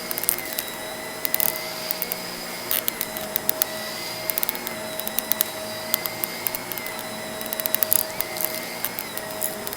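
Vacuum cleaner running steadily with a motor hum and high whine, and frequent sharp clicks and rattles as crunchy debris is sucked up.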